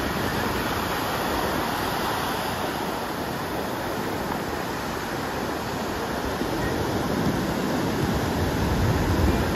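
Ocean surf breaking and washing up the sand in a steady rush, growing somewhat louder near the end.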